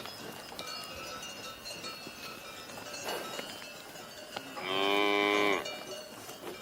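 A cow moos once, a single call of about a second near the end. Small bells tinkle and clink in the background throughout.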